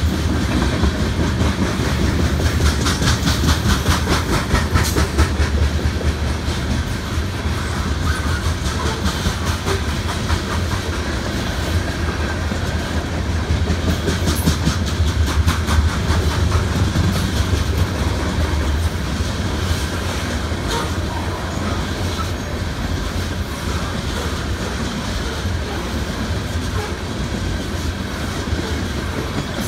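Freight train's loaded open-top hopper cars rolling past at a grade crossing: a steady low rumble of wheels with runs of rapid clickety-clack, strongest a few seconds in and again about halfway through.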